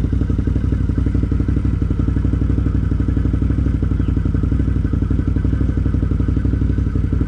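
Can-Am Outlander 850 ATV's Rotax V-twin engine idling steadily.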